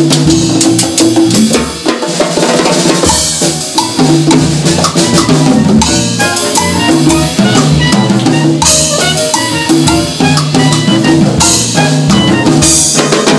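Live jazz band playing an instrumental passage: drum kit with congas and timbales driving a busy rhythm under an electric bass line, with a soprano saxophone playing.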